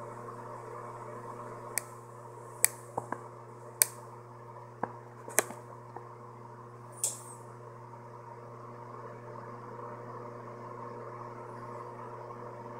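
A steady, mid-level hum with a handful of sharp clicks and ticks scattered from about two to six seconds in, and a brief swish around seven seconds.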